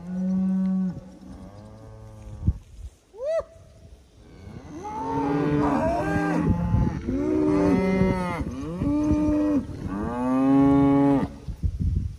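Beef cattle herd mooing: a few separate long moos in the first seconds, one short higher call rising in pitch about three seconds in, then many overlapping moos from about five seconds in until just before the end.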